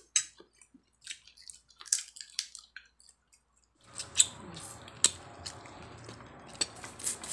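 Small wet crackles and clicks of a cooked shrimp's shell being peeled by hand, and chewing. About four seconds in, a steady faint hum and sharper clicks join.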